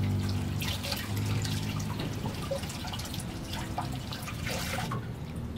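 Rainwater dripping and trickling into a curbside storm drain, many small drips, with a low steady hum underneath.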